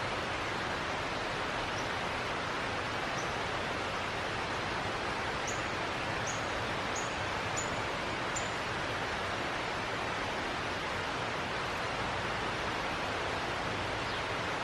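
Steady, even outdoor hiss like distant rushing water or wind in foliage. A series of short, high, thin chirps from a small bird rises out of it, most of them in a quick run a little past the middle.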